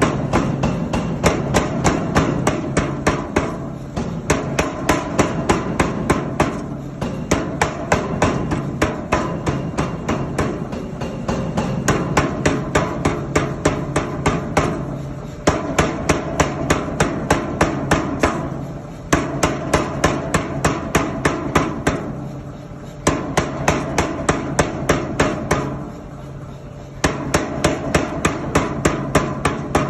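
Mechanical power hammer pounding in quick, even blows, about three a second, over the steady hum of its running motor. The blows come in runs of several seconds with brief pauses between them.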